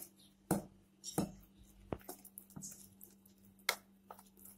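Spoon stirring thick gram-flour batter in a steel bowl, knocking and scraping against the bowl about six times, roughly every two-thirds of a second.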